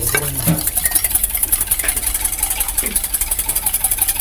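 Wire whisk beating egg in a stainless steel bowl: a rapid, even rhythm of the wires scraping and clicking against the metal.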